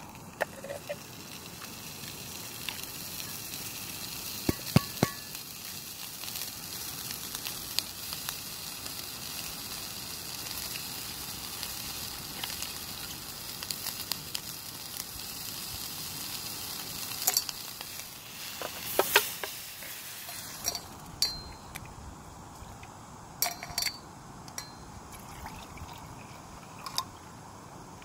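Sausages sizzling in a steel frying pan, with a few sharp metal clinks. The sizzle drops away about two-thirds of the way through, and a few more clinks follow.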